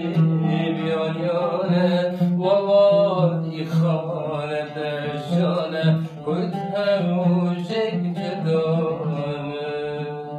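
A man singing a chanted Kurdish verse in long, wavering held notes, with an oud accompanying. The voice eases off near the end.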